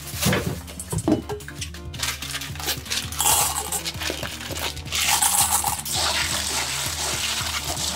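Cockle shells clattering and clinking against each other and a stainless steel bowl, then tap water running into the bowl from about five seconds in while the cockles are rubbed clean by hand. Background music plays throughout.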